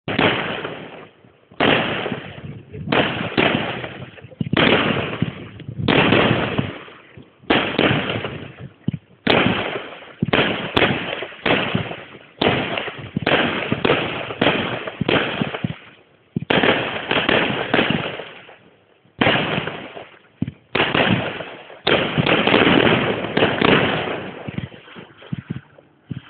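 Fireworks display: aerial shells bursting one after another, a loud bang roughly every second, each dying away in a long echoing rumble, with a quicker, denser run of bursts near the end.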